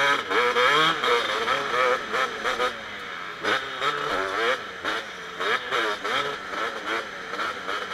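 Kawasaki KX250 motocross bike engine under hard riding, its pitch rising and falling many times in quick succession as the throttle is worked and gears change.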